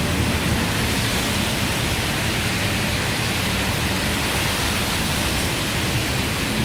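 Torrential tropical rain pouring down as a steady, dense hiss.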